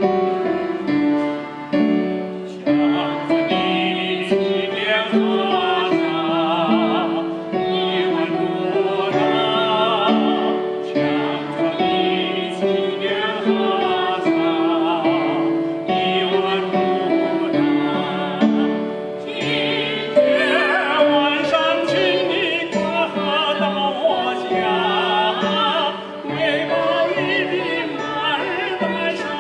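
A man and a woman singing a Chinese duet with strong vibrato, over electronic keyboard accompaniment. The keyboard plays alone for about the first two seconds before the voices come in.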